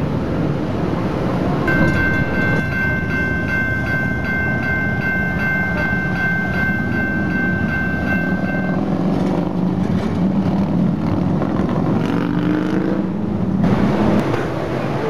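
PCC streetcar running on its rails with a steady rumble. From about two seconds in to about nine seconds, a high ringing tone pulses about two to three times a second, and near the end a low whine rises in pitch.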